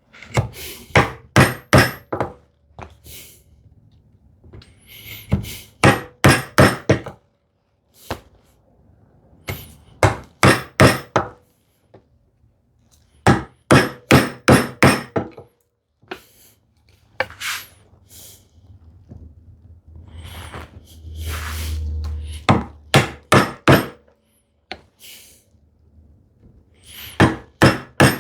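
Bevel-edge chisel being struck with a mallet to chop a mortise in wood: quick runs of four or five sharp blows with short pauses between them.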